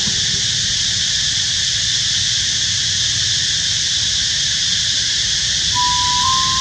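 Steady outdoor ambience: a continuous high hiss over a low rumble. A few rising notes of background music begin near the end.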